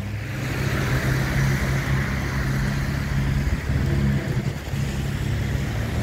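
Chevy Camaro high-output V6 idling steadily through its freshly modified exhaust, a low even drone at the tailpipes.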